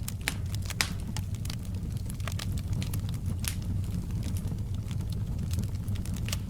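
Wood fire crackling in a fireplace: irregular sharp pops and snaps, several a second, over a steady low rush of burning.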